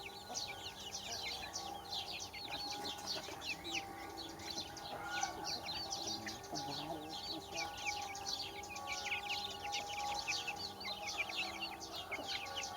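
A brood of baby chicks peeping: a dense, continuous chorus of short, high chirps, each falling in pitch.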